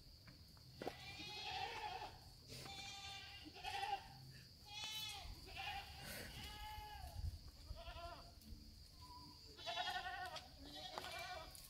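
Goats bleating, a string of about nine separate calls from several animals, each call wavering in pitch.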